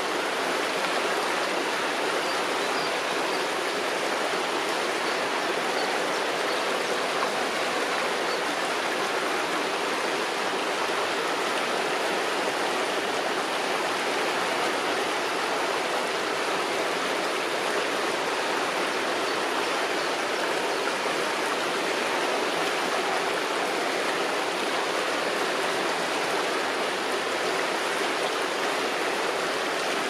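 Shallow river water flowing and rippling around branches and over a stone at the bank, a steady, even rushing.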